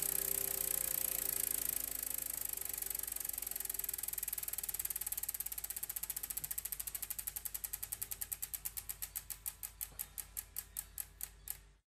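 The closing bars of a recorded music track: held tones fade out while a mechanical ratcheting tick runs under them. The ticks slow steadily, growing further apart, and stop abruptly about a second before the end.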